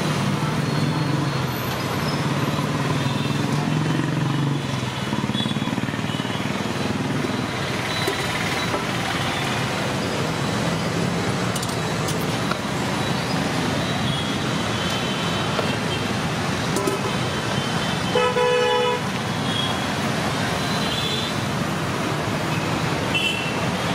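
Steady roadside traffic noise, with a vehicle horn honking once, for under a second, about three-quarters of the way through.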